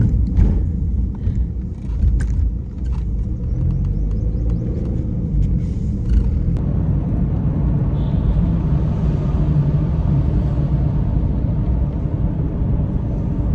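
Steady low rumble of car road and engine noise heard from inside the moving car's cabin, with a few faint clicks in the first few seconds. About halfway through, a wider hiss joins the rumble.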